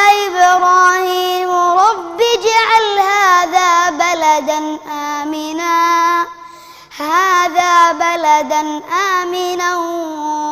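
A boy's voice reciting the Quran in melodic tajweed style: long held notes that bend and turn slowly. He breaks off once for breath about six seconds in, then resumes.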